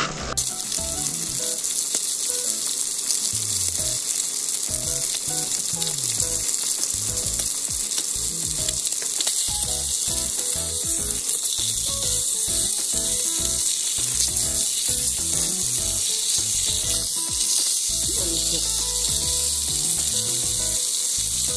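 Lamb cooking in a hot pan over the flame: a steady sizzling, frying hiss.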